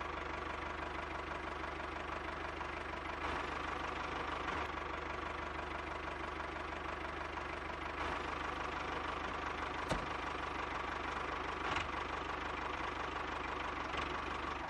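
Miniature toy tractor's steady engine-like running sound, an even fast chug, as it drives towing its trailer; two faint clicks come about ten and twelve seconds in.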